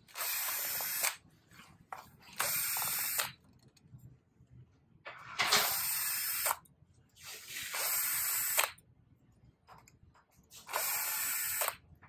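Cordless drill-driver running in five short bursts of about a second each, backing screws out of an electric scooter hub motor's cover.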